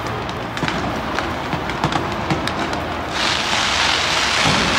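Fireworks going off overhead, with many sharp pops and cracks. About three seconds in, a dense crackling hiss swells up and grows louder.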